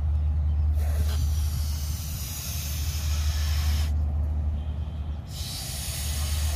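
A latex balloon being blown up by mouth: two long breaths rush into it, each about three seconds, with a pause of a second or so between them. A steady low rumble runs underneath.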